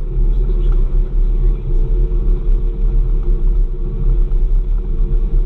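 Trail groomer's engine running steadily as it drives along the snow trail, a deep rumble with a steady hum over it, heard from inside the cab.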